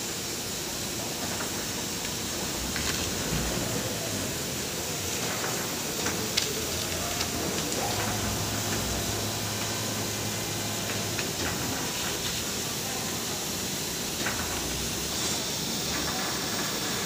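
Steady hiss and running noise of plywood hot-press machinery, with a few light knocks and a low hum from about 8 to 11 seconds in.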